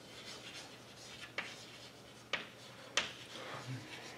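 Chalk writing on a blackboard: faint scratching strokes, broken by three sharp taps as the chalk strikes the board.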